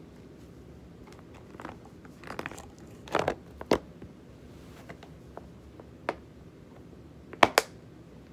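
Hands handling things close to the phone: an irregular run of sharp clicks and crackles, the loudest a pair of quick snaps near the end.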